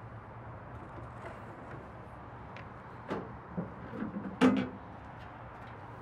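Plastic tailgate access cover being handled and set aside: a few knocks and hollow clatters, the loudest about halfway through, over a steady low hum.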